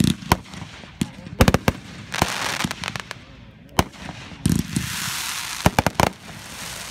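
Aerial fireworks shells bursting in quick succession: about a dozen sharp bangs, some in rapid clusters, with a spraying hiss between them that is strongest in the second half.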